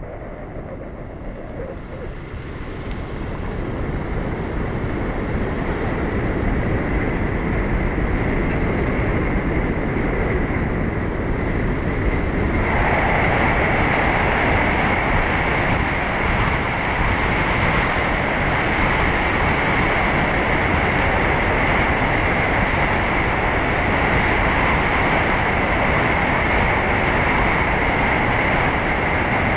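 Steady rushing road and wind noise of a car driving. It swells over the first several seconds and turns brighter and hissier about 13 seconds in.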